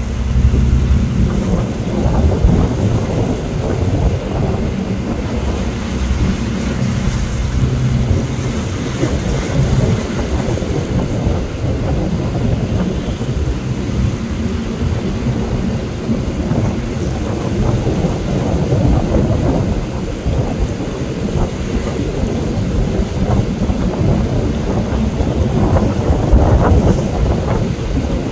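Wind buffeting the microphone aboard a fishing boat underway in rough sea, an uneven rumble mixed with the rush of choppy waves and the low hum of the boat's engine.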